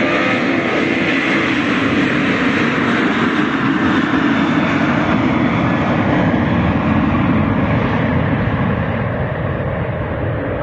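Jet airliner at takeoff power, a loud, steady engine roar. Its high end thins and the level starts to drop near the end as the aircraft climbs away.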